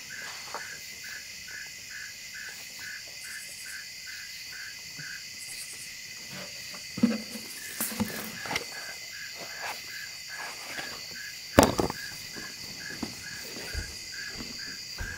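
Crickets and other night insects chirping: a regular pulse about three times a second over a continuous high trill. A few soft knocks come partway through, and one sharp knock comes about two-thirds of the way in.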